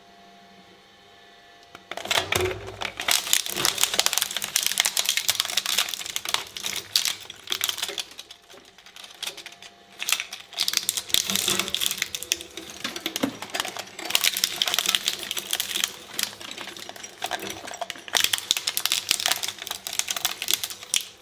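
Shredder blades chewing through material with dense, rapid crackling and crunching. It starts about two seconds in and comes in several loud stretches separated by short lulls.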